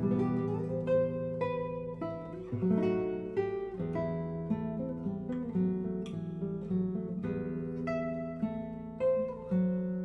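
Background music: an acoustic guitar playing a run of plucked notes over ringing chords.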